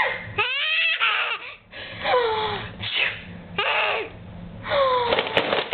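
A baby laughing hard in repeated high, squealing peals that swoop up and down in pitch, with gasping breaths between them.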